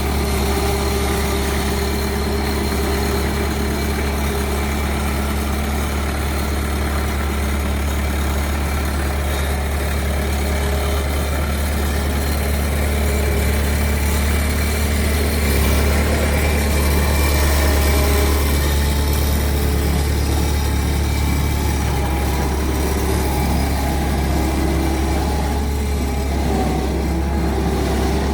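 Engine running steadily with a deep, low hum, getting a little louder for a few seconds past the middle.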